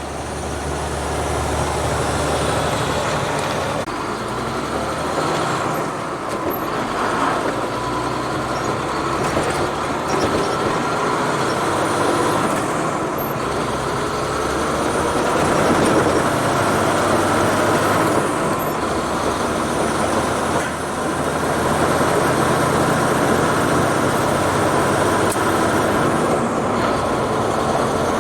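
Sterling Acterra class 7 dump truck's diesel engine pulling under way, heard from inside the cab, with tyre and rattle noise from a gravel road. The engine note changes pitch several times as the truck drives on.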